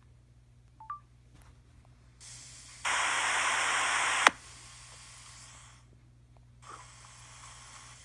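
iPhone X giving out static hiss that turns loud for about a second and a half and ends in one sharp, loud pop, followed by fainter static that returns near the end. This static-and-pop fault happens only with the ringer switch on; the owner takes it for most likely a software bug, though it could be the camera shorting out.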